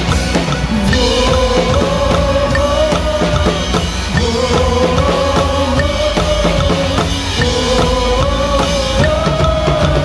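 Live worship band music led by a drum kit keeping a steady beat at about 148 bpm, with bass drum and snare under a held melody line.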